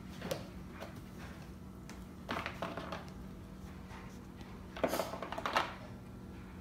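Small plastic paint bottles clicking and clattering against each other and the plastic case as they are rummaged through in an open plastic storage box: a couple of light clicks, a clatter about two seconds in, and the loudest clatter about five seconds in.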